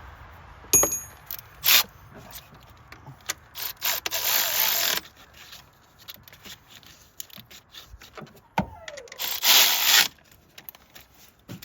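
Hand work on the ignition coils of a Chevy 4.8 V8: a sharp metallic click with a brief ring about a second in, then a second click. After that come two loud hisses of about a second each, like an aerosol can of electronic contact cleaner spraying.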